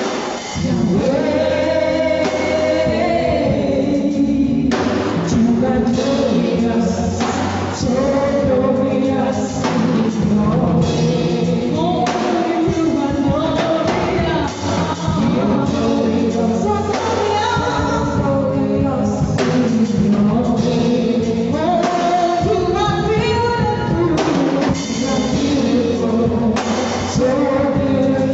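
Gospel music: voices singing over a band with a drum kit.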